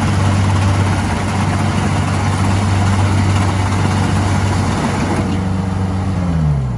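Kubota DC60 combine harvester running steadily, its diesel engine note under a dense mechanical noise. About five seconds in, the engine speed falls away.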